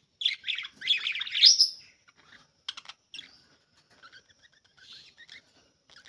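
Budgerigars chirping and chattering: a dense burst of fast warbling chirps in the first two seconds, then a quick run of sharp clicks and scattered softer chirps.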